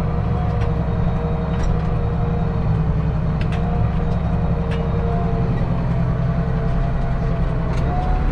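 Case IH 7120 tractor's diesel engine running at a steady pitch, heard from inside the cab, with scattered knocks and rattles as the tractor and planter bounce over a rough driveway.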